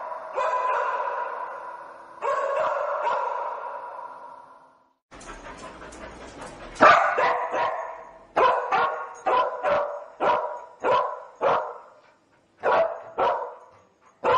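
A spaniel search dog barking: a few longer, drawn-out barks at first, then after a short break about five seconds in, a run of about a dozen sharp barks, roughly one or two a second. In a cadaver dog this repeated barking is its trained alert, signalling that it has found a scent.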